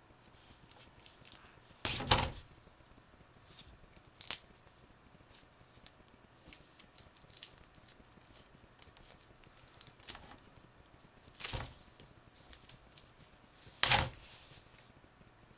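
Small clear plastic wrapping crinkling and tearing as a coiled USB cable is pulled free of it by hand, with faint crinkles throughout. There are three short, louder rustles, about 2 seconds in, about two-thirds through and near the end, and one sharp click about 4 seconds in.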